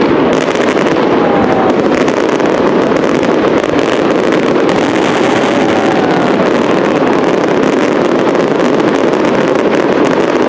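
Castillo fireworks display in full barrage: many aerial shell bursts and crackle merge into one continuous loud din, with a faint whistle now and then.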